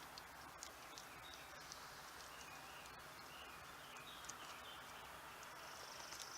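Quiet outdoor ambience: faint high chirps of insects or birds with a few light clicks scattered through.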